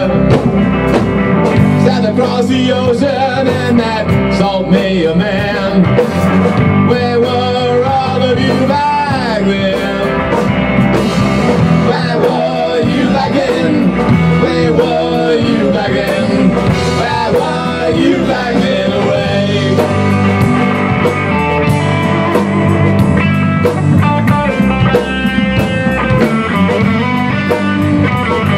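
Rock band playing live: electric guitars over a drum kit in a steady blues-rock groove, with a lead line that slides and bends up and down in pitch.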